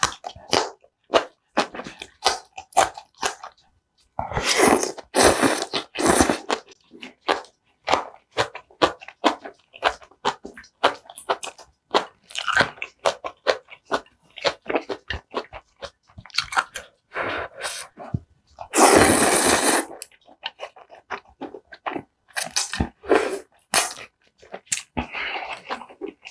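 Close-miked eating of green onion kimchi and kalguksu noodles: a steady run of crunchy, wet chewing clicks. Two long, loud slurps break in, about four seconds in and again about nineteen seconds in.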